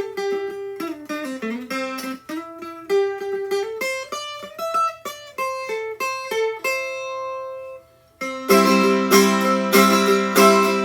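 Eight-string American tiple in ukulele tuning (G C E A) playing a picked single-note melody, with a last note left ringing. After a brief gap about eight seconds in, it breaks into loud strummed chords. The strings are freshly changed and still settling, so the tuning is slightly off.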